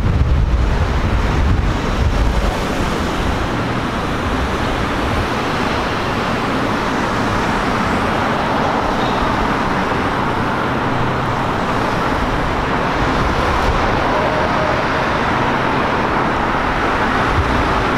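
City street traffic: a steady wash of cars driving past on a multi-lane road, with a heavier low rumble in the first couple of seconds.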